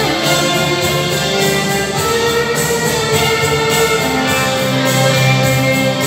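Two violins playing together, a melody of long held notes with low sustained bass notes underneath.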